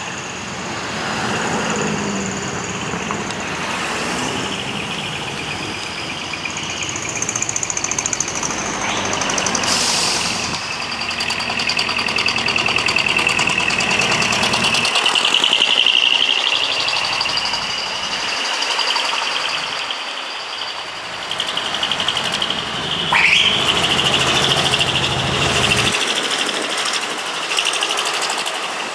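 Decorated trucks pulling away with their engines running, over them sustained high horn and siren tones that change pitch now and then. In the later part there is one quick rising siren whoop.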